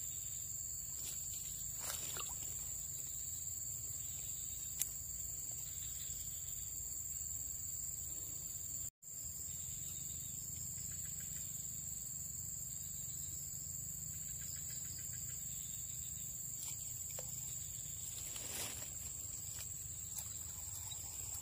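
Insects chirring in one steady, high-pitched drone, with a low background rumble beneath and a brief dropout about nine seconds in.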